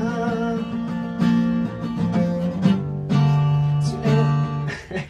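Music: an instrumental passage led by acoustic guitar chords, the chord changing about once a second, dying away near the end.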